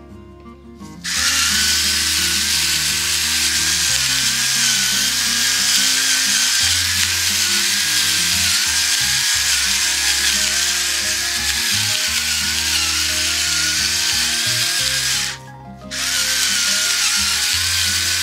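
Electric pepper mill grinding black pepper, its small motor making a loud, steady grinding whine; it starts about a second in, stops for about a second near the end, then runs again. Soft background music plays underneath.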